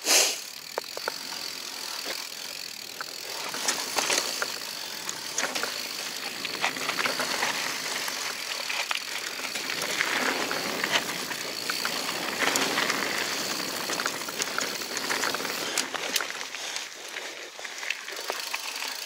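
Mountain bike rolling fast down a dirt singletrack: tyre noise over dirt and roots with frequent clicks and rattles from the bike, and wind rushing over the bike-mounted camera. A sharp knock comes right at the start.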